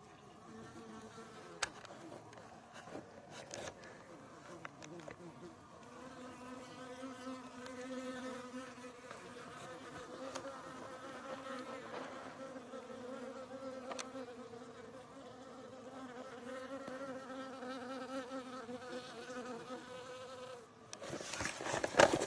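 A flying insect buzzing close by, its hum wavering in pitch and loudness and steadier from about six seconds in. Near the end, a loud burst of handling and scraping noise as the camera is moved over rocky ground.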